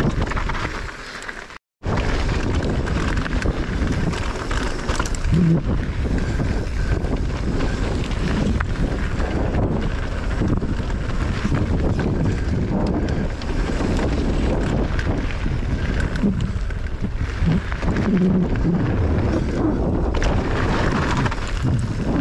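A mountain bike riding down a dirt trail: wind rushing over the camera microphone, tyres rolling and the bike rattling, with scattered knocks. The sound drops out for a moment about a second and a half in.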